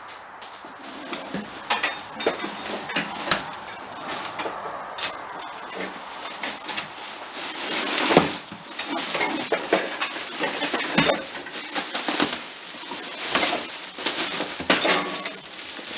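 Household items clattering and knocking as they are shifted in a pile, then a black plastic garbage bag rustling and crackling as it is dragged out, with the rustling busier about halfway through.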